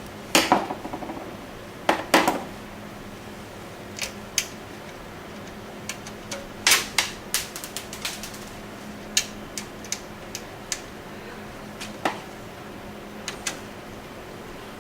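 Metal clicks, knocks and clatter as a power supply (SMPS) is set into a PC case and its mounting screws are handled and started with a screwdriver. Two louder clatters come in the first couple of seconds, followed by scattered lighter clicks.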